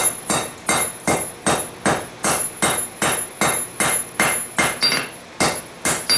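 Hand hammer beating a red-hot forge-welded stack of bandsaw blades on a steel anvil, steady blows about two and a half a second. The billet is being flattened at forging heat to test whether its sand-fluxed weld delaminates.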